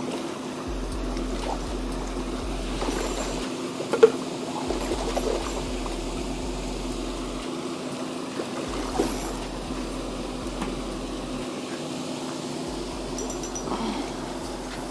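Steady splashing and trickling of water from a pond aerator, with a low steady hum under it. A single sharp click about four seconds in.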